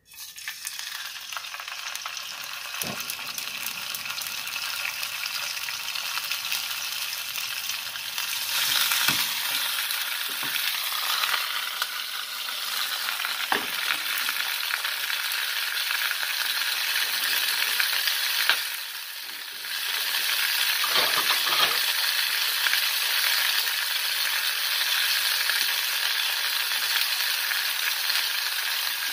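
Salt-marinated mackerel frying in olive oil in a covered pan, sizzling steadily, with a few small pops and a brief drop in the sizzle about two-thirds of the way through.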